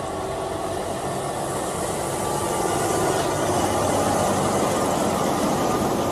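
Diesel engine of a MAN concrete mixer truck driving past, a steady engine and road noise that grows louder as the truck comes close about three to four seconds in.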